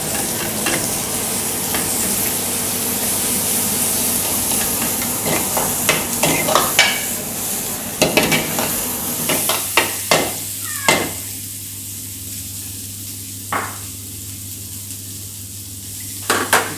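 Hot oil sizzling in a frying pan as garlic and chopped greens are stirred with a steel ladle, the ladle clinking against the metal pan. About eleven seconds in the sizzling dies down, leaving a steady low hum and a few more clinks near the end.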